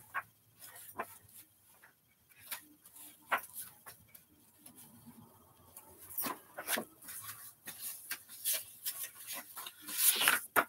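Pages of a vintage cookbook being handled and turned: scattered soft paper rustles and light ticks, sparse at first and busier and louder in the second half.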